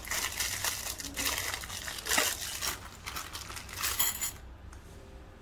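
Clear plastic hardware bag crinkling and rustling as small screws are picked out of it, with a sharp little clink of metal about four seconds in.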